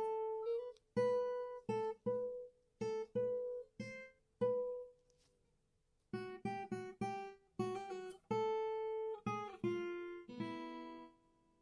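Acoustic guitar played in short phrases of single plucked notes and chords, each struck sharply and let ring briefly. After a pause of about a second midway, a quicker run follows, with a few held notes and one that slides down in pitch near the end.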